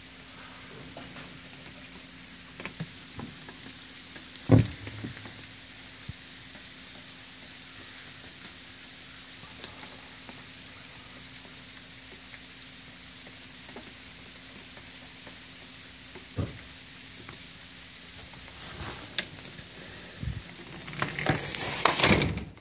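Steady soft hiss of wet snow falling onto leaves and ground, with a faint steady hum beneath it. A few scattered knocks, the loudest about four and a half seconds in, and rustling handling noise near the end.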